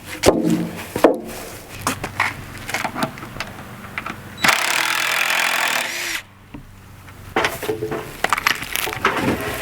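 Hand demolition of old cabin timber: sharp knocks and creaking wood. Midway there is a loud scraping rush lasting under two seconds that stops abruptly.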